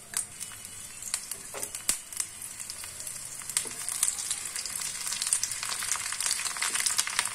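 Chopped garlic sizzling and crackling in hot mustard oil in a cast-iron karahi, stirred with a wooden spatula: the tempering (bagar) for dal. There are a few sharp clicks in the first couple of seconds as the garlic is scraped in, and the sizzle then builds steadily louder.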